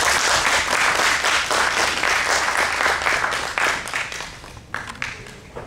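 Audience applauding: dense clapping that starts right away, holds for about three and a half seconds, then thins out to a few scattered claps.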